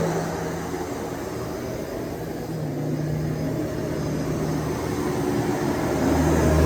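Shark DuoClean PowerFins vacuum cleaner running with a steady motor hum. It dips a little quieter early on and builds back up near the end.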